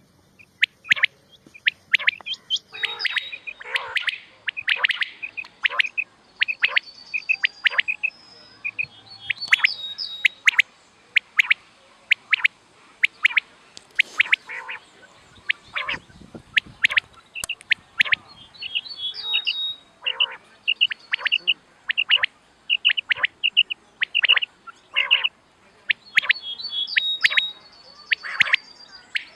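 Quail calls, the female's call of the kind played as a hunting lure: short, sharp, high calls repeated in quick series, with only brief gaps between the bouts.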